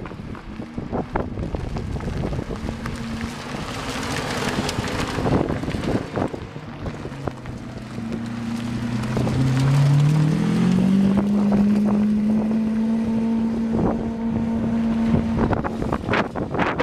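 Supercar engines driving past, with wind buffeting the microphone. About halfway through one engine's pitch climbs as it speeds up, then holds steady for several seconds before falling away.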